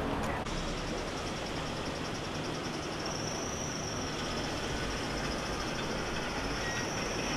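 Steady vehicle rumble with a thin, high whine over it that grows stronger about three seconds in and then holds.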